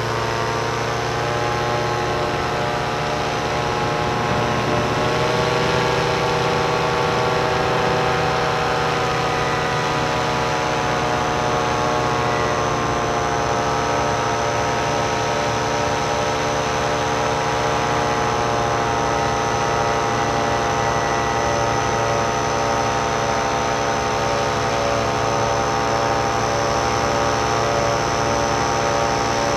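Powered paraglider's engine and propeller running steadily in flight. The pitch rises a little about five seconds in, then holds.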